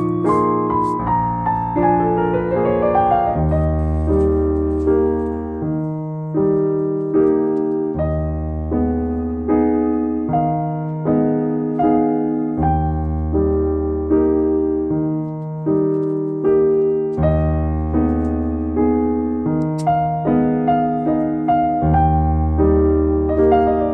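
Background music: a piano tune with repeating bass notes and a steady, regular pulse.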